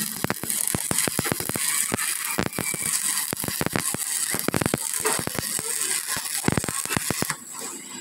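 Stick-welding arc on a truck's rear axle housing: a steady crackle and sizzle with a rapid patter of sharp pops. It stops about seven seconds in as the arc is broken.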